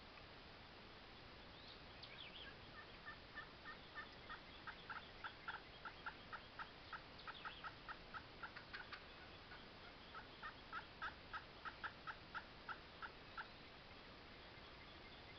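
Wild turkey yelping faintly: a long run of short, evenly spaced yelps about three a second, breaking off for a second and then going on for a few seconds more. A few faint songbird chirps come in between.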